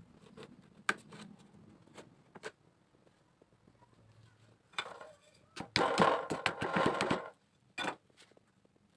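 Handling of a thin wooden strip being bent around a clamped cylindrical form: a few light clicks and knocks, then about six seconds in a dense, rapid scraping rattle lasting over a second, followed by one more knock.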